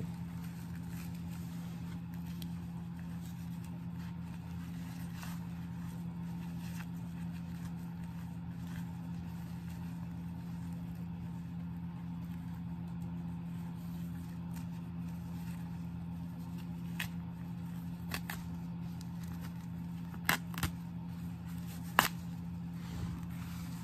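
Steady low hum, with a few sharp plastic crinkles and clicks in the last few seconds as a plastic foot-mask bootie is handled on the feet.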